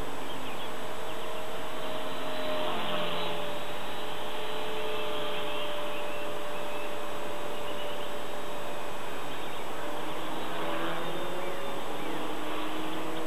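Blade 400 electric RC helicopter flying overhead, its motor and rotors giving a thin whine that drifts in pitch as it manoeuvres, rising slowly near the end, over a steady hiss.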